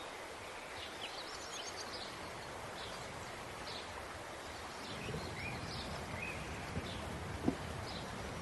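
Outdoor ambience: small birds chirping now and then over a steady background hiss, with one soft knock near the end.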